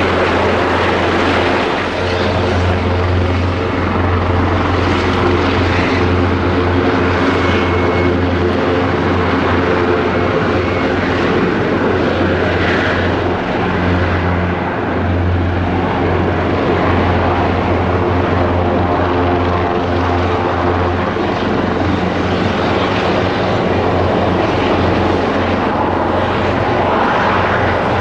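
Airbus Helicopters EC225LP Super Puma twin-turbine helicopter running: a loud, steady rotor and turbine drone with a strong low hum.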